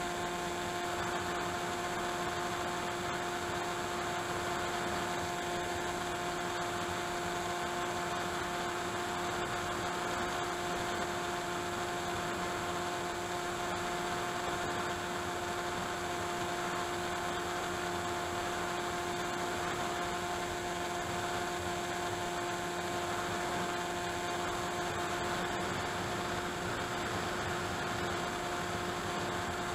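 Steady drone of an AXN foam model plane's electric motor and propeller at constant cruise throttle, with a rush of airflow hiss, picked up by the camera mounted on the plane.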